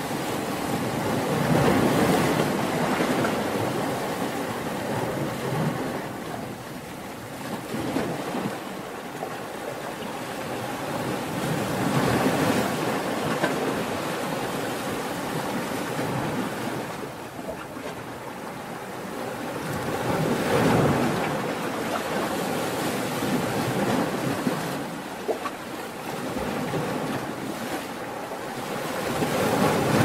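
Ocean waves breaking and washing in, a steady rush of surf that swells into a louder crash about every nine or ten seconds.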